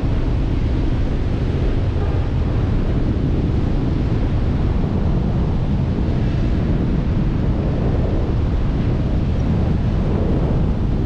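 Airflow buffeting an action camera's microphone during a tandem paraglider flight: a steady, loud, low rumble of wind noise.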